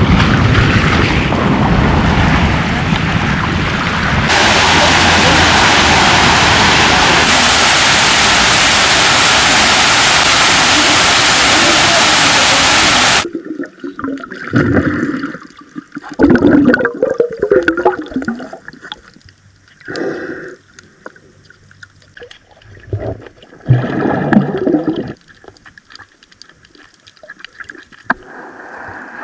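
Water rushing loudly and steadily, cutting off suddenly about halfway through, followed by separate short gurgles and splashes.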